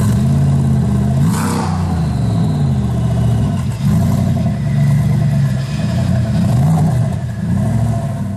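Supercar engine being revved, its pitch swinging up and down several times.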